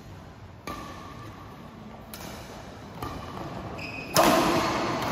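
Badminton rally on an indoor court: rackets strike the shuttlecock roughly once a second, with short shoe squeaks on the court floor. A much louder hit comes about four seconds in.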